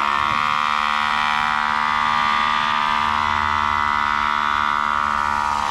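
A loud, steady machine whine with a strong pitched tone that holds its pitch throughout.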